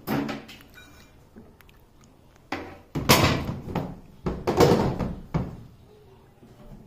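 The plastic cover of a Eureka Forbes Aquasure Xpert water purifier being worked open by hand: a string of knocks and clattering thuds of the plastic housing. One comes just at the start, then a louder cluster from about two and a half to five and a half seconds in.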